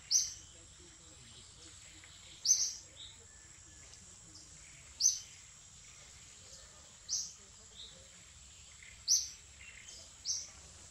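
A bird gives a short, high, sharp call over and over, about every two seconds, six times in all. Under it runs a steady high insect whine, such as cicadas or crickets make.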